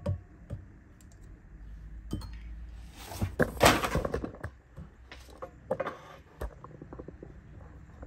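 Kitchen handling sounds around a stainless steel stand-mixer bowl as condensed milk is poured in from a metal can: scattered light knocks and clinks, with a louder rustling, scraping burst about three and a half seconds in.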